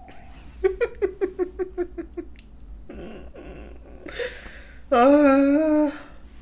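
A woman laughing in a quick run of about nine short "ha"s. Near the end comes a loud, drawn-out vocal sound about a second long whose pitch wavers.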